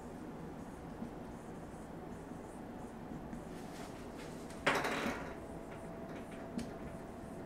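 Marker pen writing on a whiteboard: faint scratchy strokes, with one louder brief scrape-like noise about halfway through.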